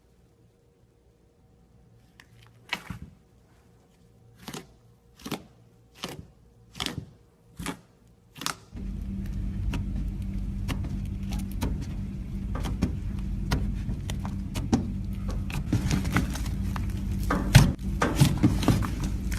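Slime being handled: a run of about eight sharp pops, roughly one every 0.7 s, then a steady low hum with constant small crackling from about nine seconds in.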